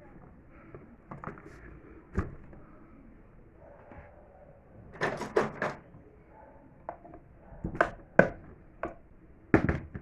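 Scattered sharp knocks and clicks of fan parts being handled while an Arge Max 60 fan is taken apart, with a quick run of four about halfway through and a few single knocks near the end.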